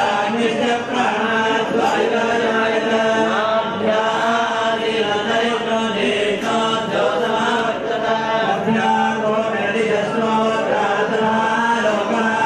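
Sanskrit mantras chanted by several voices in a continuous, even recitation, with a steady held note underneath.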